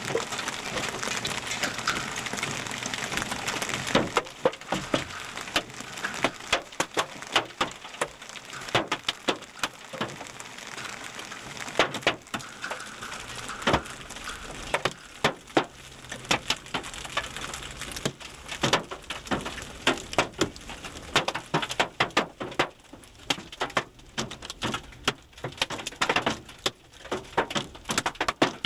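Hailstones pelting a vehicle's body and windshield: a dense, irregular patter of sharp cracks and knocks, some much louder than others. A steady rushing wash of hail and wind lies under it for the first four seconds, then fades.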